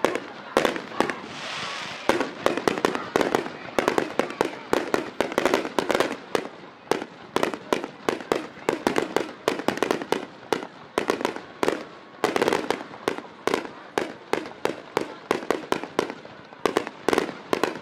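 Aerial fireworks bursting in a rapid, unbroken barrage: sharp bangs and pops, several a second, overlapping one another.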